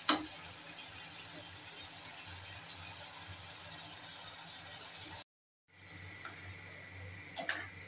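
Chilli paneer sauce sizzling steadily in a frying pan, with a metal spatula clicking against the pan at the start and a couple of light clicks near the end. The sound cuts out completely for a moment a little after five seconds in.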